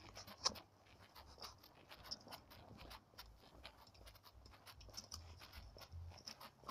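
Faint rubbing, scratching and irregular light clicks from a phone fixed to the body of a walking person, the phone shifting against clothing with each step.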